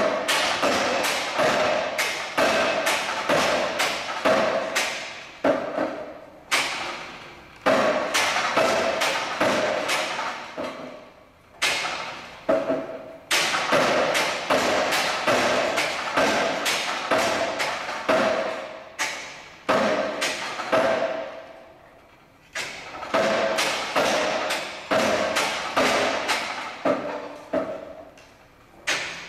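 Swinging pendulum and lever of a Milković two-stage oscillator replica: rapid knocking and clattering, several knocks a second. The knocks come in runs of a second or two, each starting with a hard hit and fading, with brief breaks between them.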